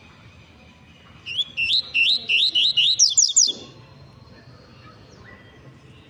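Caged double-collared seedeater (coleiro) singing one tui-tui song phrase, starting about a second in: a run of quick rising notes, about four a second, that speed up and climb higher near the end before stopping.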